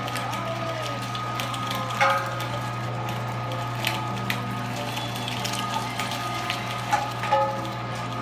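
Weston #22 electric meat grinder running steadily while it grinds raw chicken, bones and all, with a few sharp clicks over the motor's hum.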